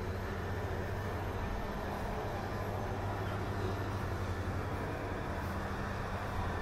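Steady low rumble and hum of distant vehicle traffic.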